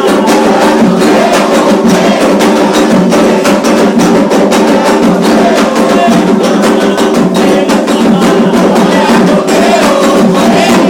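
Candomblé ceremonial drumming: atabaque hand drums playing a fast, dense rhythm with sharp wood-block-like strokes, and voices singing over it.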